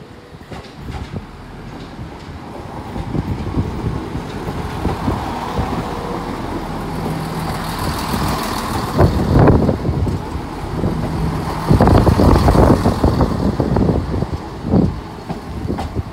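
ScotRail Class 170 Turbostar diesel multiple unit running in along the platform. The rumble of its underfloor diesel engines and wheels on the rails grows louder as it comes close, and is loudest as it passes about nine and twelve seconds in.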